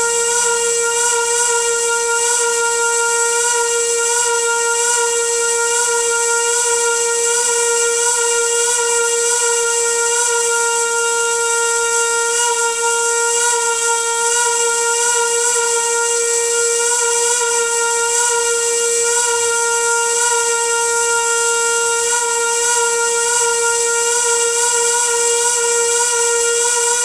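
A water pipe singing: a steady, unbroken whistling hum at one pitch over a hiss.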